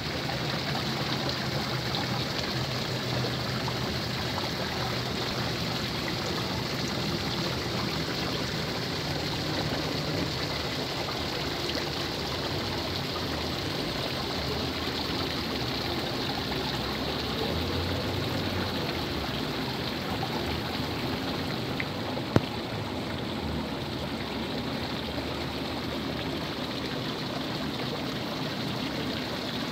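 Small garden-pond waterfall trickling and splashing steadily into a koi pond. A single sharp click about three-quarters of the way through.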